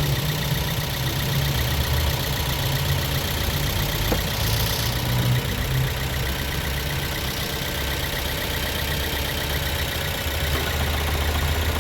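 Toyota Corolla engine idling steadily with the air conditioning switched on, the AC compressor and electric radiator cooling fan running. A light click about four seconds in.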